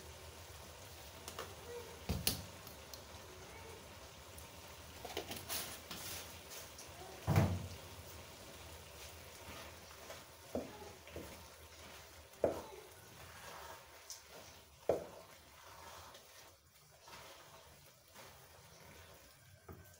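Wooden spoon stirring thick grated-carrot halwa in a nonstick wok. Scattered knocks of the spoon against the pan, every couple of seconds, over a faint steady hiss.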